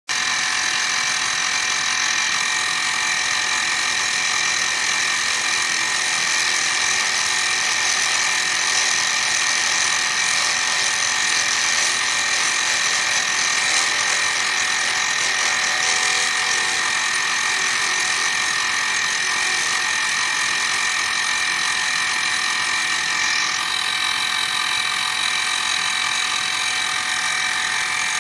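Milling machine spindle running with a steady high whine while its end mill cuts a flat into a resin pen blank.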